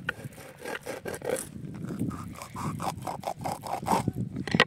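Kitchen knife sawing through the scaly skin of a whole fish to score it, a run of short rasping strokes that come quicker and louder in the second half. A sharp knock near the end.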